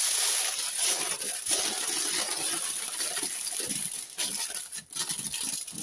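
Kitchen aluminium foil crinkling and crackling as it is crumpled and pressed by hand around the rim of a pot to cover it, continuous at first and thinning to scattered crackles near the end.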